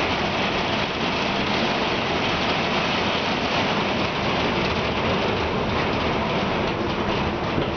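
Heavy squall rain driven by high winds against a window, a loud, steady, even hiss with no breaks.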